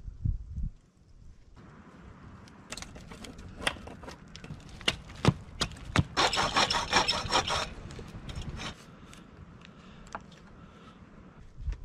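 Hatchet chopping a wooden stick: a handful of sharp wooden knocks, then about a second and a half of rough scraping and crackling. After that a knife whittles wood with fainter shaving scrapes.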